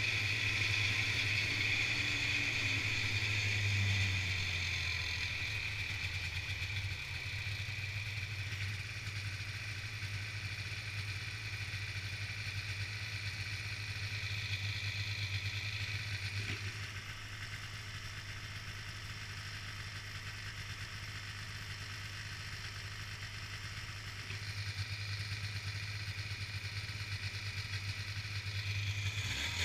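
Snowmobile engine slowing as the sled comes to a stop about four seconds in, then idling steadily, its note picking up again just before the end.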